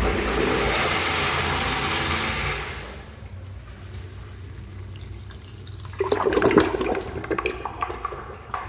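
Kohler urinal flushing through its flush valve: a loud rush of water that falls away about three seconds in to a quieter wash of water draining. A louder, uneven sound comes in about six seconds in.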